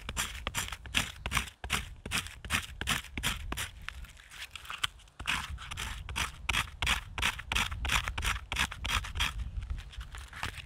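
Fast, rhythmic scraping strokes, about three or four a second, with a pause of about a second near the middle.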